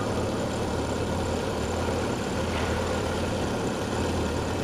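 Toyota 4K four-cylinder petrol engine idling steadily while its ignition dwell angle is measured with a dwell tester.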